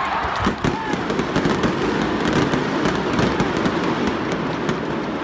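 Arena pyrotechnic spark fountains firing: a dense, fast crackle over a steady rushing hiss.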